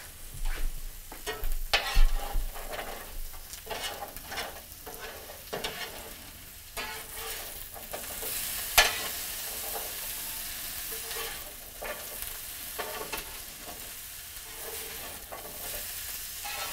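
Bread cubes frying into croutons in a frying pan: a steady sizzle under irregular scrapes and clacks of a utensil stirring them against the pan, with the sharpest clacks about two and nine seconds in.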